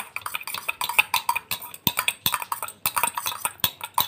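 A metal spoon clinking and scraping in a stainless steel bowl in quick, irregular taps as a toddler scoops up his food.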